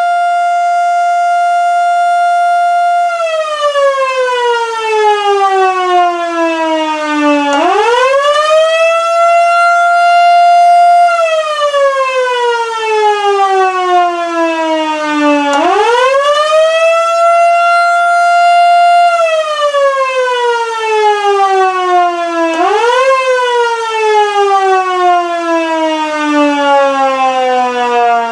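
1955 Federal Signal Model 2 electromechanical siren holding a steady tone, then about three seconds in switching to the Attack signal: a wail that slides down and back up, repeating about every eight seconds. Near the end it climbs only part way before sliding down again. The tone is pitched high, which the owner puts down to the siren having worn in.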